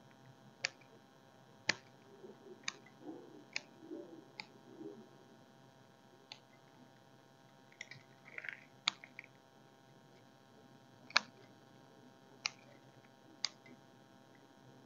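About a dozen sharp, irregularly spaced clicks, with faint rustling between them, as a bonsai's root ball is worked over and loose soil comes away from it.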